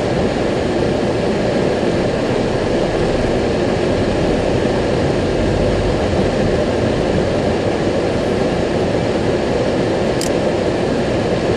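Steady in-cabin rumble of a car driving slowly on a wet road in the rain, with no change in level, and one short click about ten seconds in.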